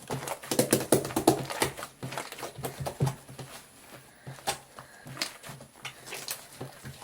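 Slime with shaving foam mixed in, being kneaded and squished by hand: a quick run of wet clicks and pops, thickest in the first three seconds, then sparser.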